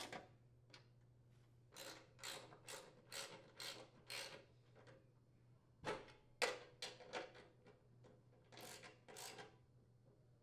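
Socket ratchet clicking as the bolts securing the snowblower's auger bearing holders are tightened: three runs of quick clicks with short pauses between them.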